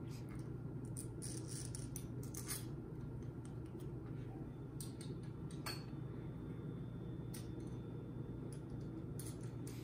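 Faint, scattered clicks and light rattles of small hard objects being handled, over a steady low hum.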